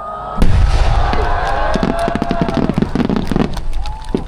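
Aerial fireworks: whistling shells climbing, then about half a second in a sudden dense barrage of bangs and crackling bursts with whistles still sounding over it, thinning out near the end.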